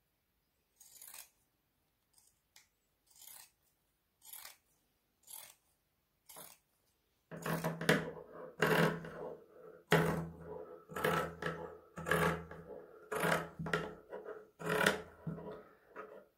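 Fabric scissors snipping along the edge of sewn cotton, trimming the seam allowance to cut down its thickness. The snips are sparse and quiet at first, about one a second, then louder and closer together from about seven seconds in.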